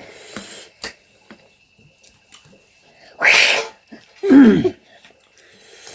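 A person makes one sharp, loud, breathy burst about three seconds in, followed by a short voiced sound falling in pitch. Faint clicks of eating utensils come before it.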